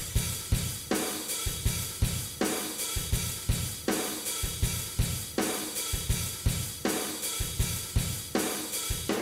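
Background music: a drum-kit beat with snare, hi-hat, cymbals and bass drum at a steady tempo.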